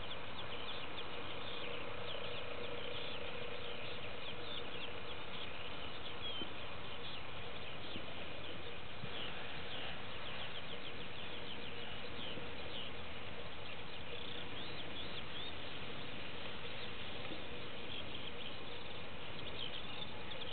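Many small birds chirping continuously in open grassland over a steady hiss of outdoor background noise.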